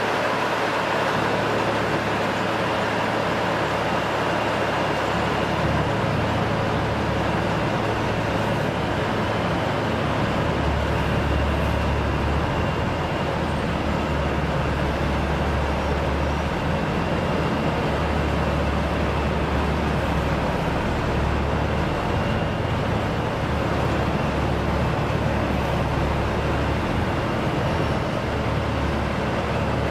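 Roadtec RX500 cold planer running steadily while milling off worn asphalt, its diesel engine and cutting drum making a continuous low machine noise; the low end gets heavier about ten seconds in.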